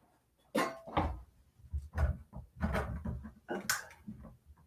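Handling noise from a camera tripod being adjusted close to the microphone: a series of irregular knocks, bumps and clicks with deep thuds.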